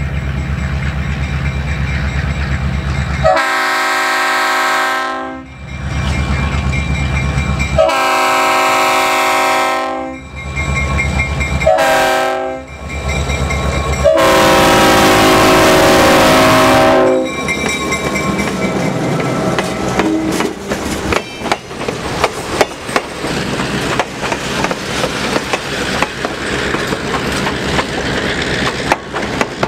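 An EMD MRS-1 diesel locomotive's engine runs with a low rumble as it approaches, then its multi-note air horn sounds long, long, short, long: the grade-crossing signal. After the horn cuts off, the passenger cars pass close by, their wheels clicking rapidly over the rail joints.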